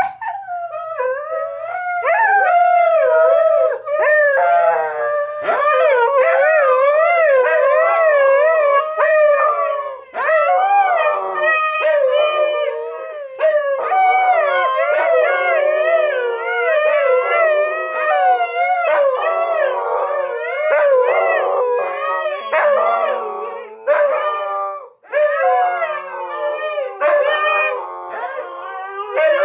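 Siberian husky singing: a long run of warbling howls, the pitch rocking up and down about twice a second, broken only by a couple of brief pauses for breath.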